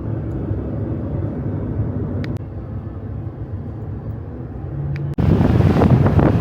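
Steady low rumble of a vehicle. About five seconds in it cuts abruptly to loud wind buffeting the microphone.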